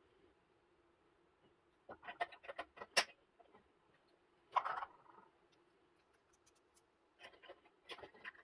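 Small plastic clicks and taps as a contact block is handled and snapped into a pushbutton control-station enclosure, with a sharper snap about three seconds in. A short burst of handling noise follows near the middle, and a few more small clicks come near the end as the terminal blocks are worked.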